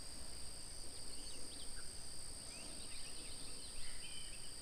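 Insects keeping up a steady high-pitched drone, with faint scattered bird chirps.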